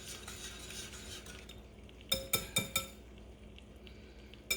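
Eggs being beaten by hand in a bowl, a soft scraping stir, then four quick taps of the utensil against the bowl about two seconds in and one more tap near the end.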